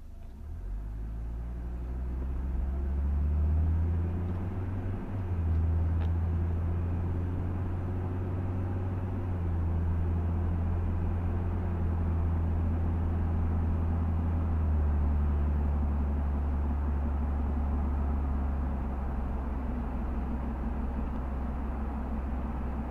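Car driving along a road: a steady low engine and road rumble that builds over the first few seconds as the car picks up speed, dips briefly about five seconds in, then runs evenly.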